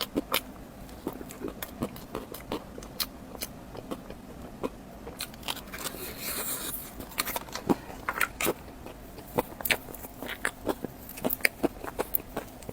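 Close-miked eating: irregular biting and chewing with sharp wet mouth clicks and crunches, and a short hiss about six seconds in.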